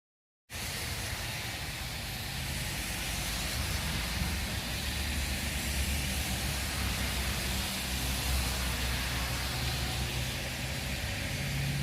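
Vehicle driving at steady speed: continuous rumble and hiss of road and engine noise. It starts abruptly about half a second in.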